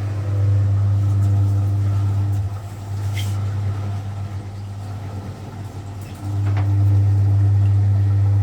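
Vintage Frigidaire Super Deluxe Automatic 50 front-loading washing machine's motor humming as the spin is started: a loud, steady hum that eases off about two and a half seconds in, then comes back louder about six seconds in.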